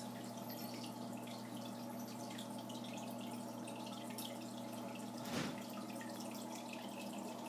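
Aquarium filter running: water trickling and dripping into the tank over a steady electric pump hum. A single short bump about five seconds in.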